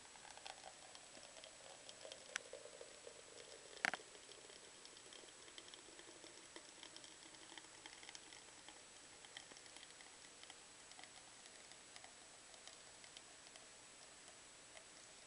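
Faint pattering of strawberry smoothie trickling from a blender's dispensing spout into a plastic cup. Two sharp clicks come about two and a half and four seconds in, the second the loudest.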